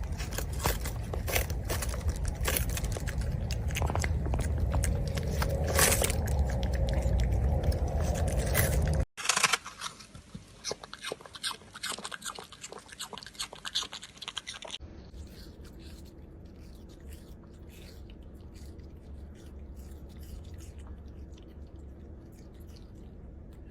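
Puppies chewing and crunching their food, a dense run of small crunches and clicks. It is loudest for about the first nine seconds, then continues more quietly after two abrupt cuts.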